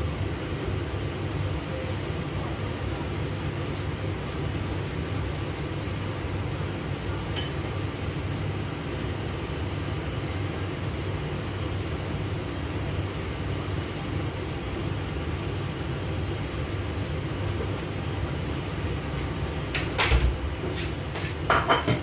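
Steady low whir of a kitchen range hood fan running over the stove, with a few sharp knocks and clatters near the end.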